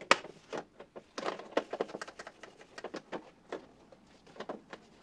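Irregular light clicks, knocks and short scratchy rubs from the metal latches and handle of an old Simonsen toolbox being polished by hand with 0000 steel wool.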